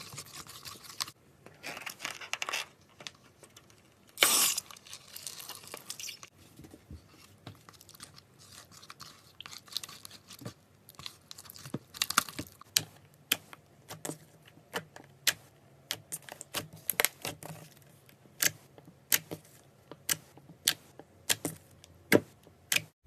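Slime-filled stress ball being cut open, with crackling and tearing. A loud tearing burst comes about four seconds in, followed later by a run of short sharp clicks, about one or two a second.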